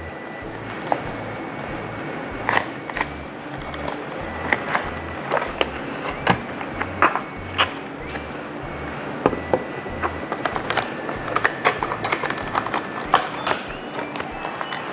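Unboxing a small diecast bus model: a cardboard box and a clear plastic clamshell handled and opened, giving irregular sharp plastic clicks and short crinkles.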